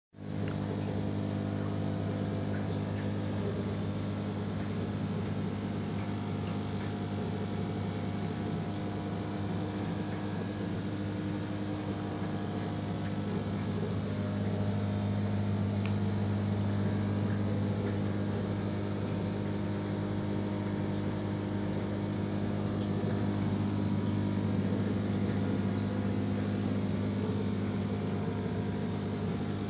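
Aquarium pump humming steadily: a low electric drone that gets a little louder about halfway through.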